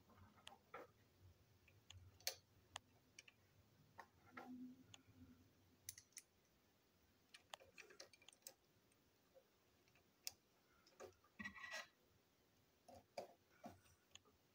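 Faint, irregular clicks and taps of small plastic toy train parts being handled and fitted together on a table, with a short burst of rattling clicks near the end.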